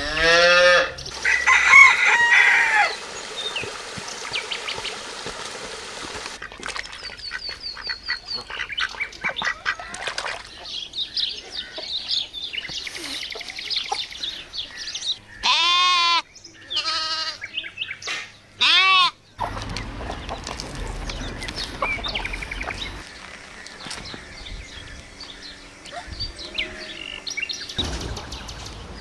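Chickens calling: a loud, drawn-out call in the first few seconds, then two short rise-and-fall squawks about midway, with small birds chirping faintly between them.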